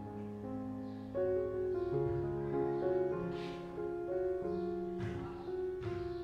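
Background music of slow, held keyboard notes, the notes changing about once a second.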